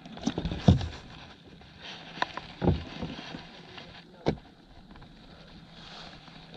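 A few dull thumps and sharp knocks on a plastic fishing kayak's hull as a freshly landed fish is handled in the footwell. The loudest thump comes just under a second in, another near the middle, and a sharp click follows about a second later.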